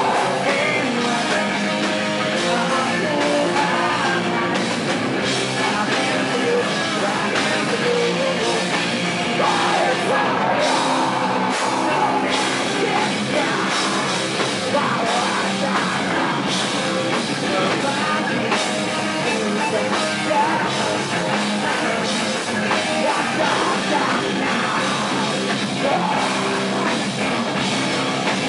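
Live heavy rock band playing loud and steady: distorted electric guitars, bass and drum kit, with a vocalist singing.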